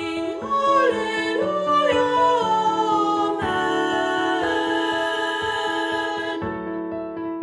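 Mixed choir of soprano, alto, tenor and bass voices singing a hymn in harmony, with sustained chords and a moving melodic line.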